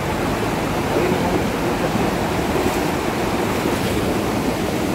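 Muddy floodwater of a torrent in spate after a thunderstorm, rushing steadily past in a continuous heavy noise.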